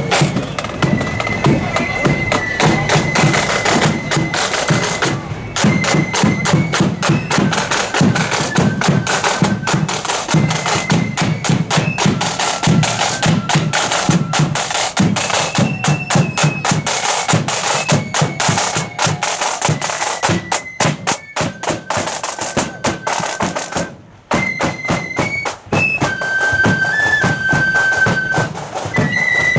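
Marching flute band playing a tune: many flutes sound high held notes over steadily beaten side drums and bass drum. The music drops out briefly about three-quarters of the way through, then the flutes come back in.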